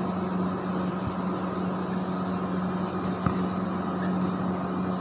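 Steady mechanical hum with one constant low tone over an even hiss, and a single faint tap a little past three seconds in.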